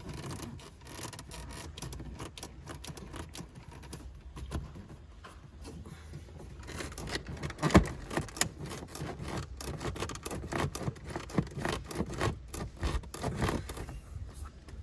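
Plastic dashboard trim being pried and worked against its retaining clips: irregular scraping, rubbing and clicking of plastic on plastic, with a sharp knock about eight seconds in.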